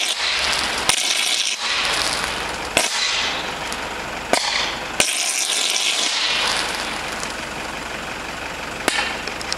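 A 230 V low-voltage short circuit in an oil-filled power cable on a utility pole, arcing and burning: a loud, continuous sputtering hiss with about five sharp cracks, easing somewhat after about six seconds.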